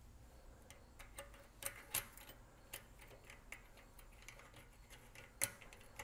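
Faint, scattered metallic clicks and clinks of bicycle cassette cogs and spacers being slid onto a rear wheel's freehub splines and settled into place, with the sharpest click about five and a half seconds in.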